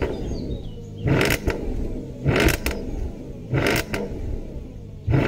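Porsche Cayenne S V8 exhaust idling, with the throttle blipped about four times, roughly once every second and a quarter.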